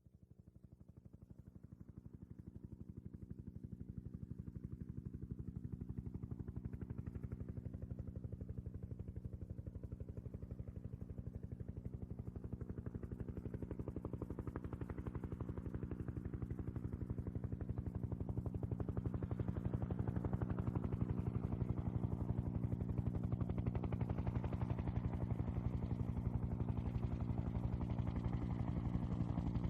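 Bell UH-1N Twin Huey helicopter approaching: the rapid, even beat of its two-bladed main rotor over a steady engine tone, fading in from faint and growing steadily louder.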